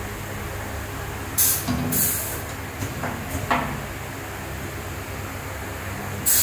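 Short bursts of compressed-air hiss, twice, from the copy router's pneumatic clamps, then a few sharp metallic clunks, over a steady low machine hum.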